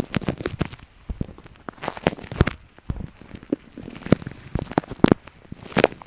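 Close-miked ASMR ear-cleaning sounds: irregular crackling and scratching clicks right against the microphone, a few every second, with some louder strokes.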